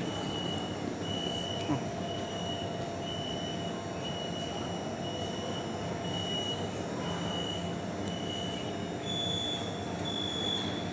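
Metro train standing at an underground platform, its equipment humming steadily, under a short electronic beep that repeats about once a second. About nine seconds in, the beep steps up to a slightly higher tone.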